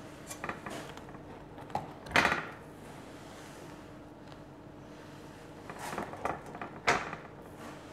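A handful of light clinks and knocks of kitchenware, a plate and a baking tray with its mould, set down and handled on a countertop while cakes are laid out. The loudest knock comes about two seconds in and another sharp one near the end, over a faint steady hum.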